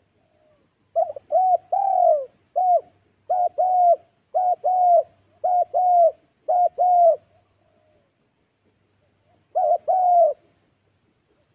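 Spotted dove cooing in the 'gù đinh' style: a fast run of short, falling coo notes in pairs, repeated about seven times, then a pause of two seconds and one more pair near the end. Softer, quieter coos are heard at the very start and end.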